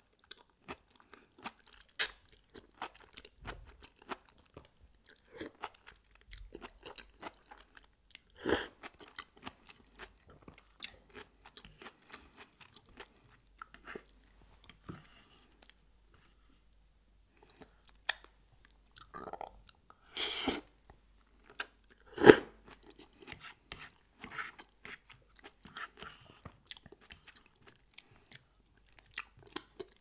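Close-miked ASMR eating sounds: wet chewing and mouth clicks while eating Alfredo pasta. A few louder mouth sounds stand out, the loudest about three-quarters of the way through.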